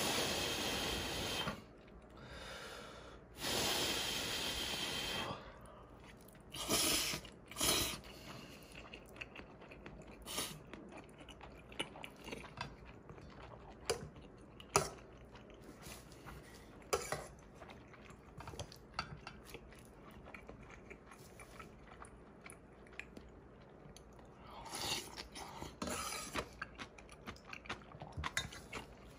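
Close-up eating sounds: slurping of black-bean-sauce instant noodles and cold seaweed-cucumber soup, in two long slurps near the start, two short ones a few seconds later and a cluster near the end. Between them, chewing and light clicks of chopsticks and a metal spoon against steel pots.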